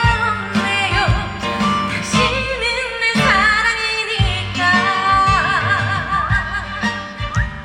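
A woman singing a trot song live over backing music with a steady drum beat, her voice wavering in vibrato on held notes in the second half.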